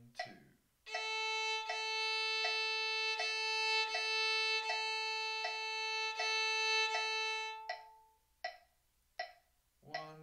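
Violin holding one long bowed note for about seven seconds before it dies away, over a metronome clicking steadily about every three-quarters of a second; the clicks go on alone for the last couple of seconds.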